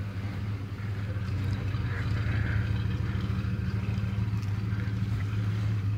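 1977 GMC pickup's engine running quietly as the truck creeps forward at low speed, a steady low hum.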